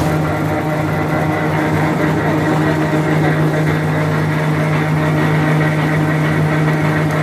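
RB50 rebar bender running in automatic mode, its electric motor and gearbox giving a steady hum with a strong low drone.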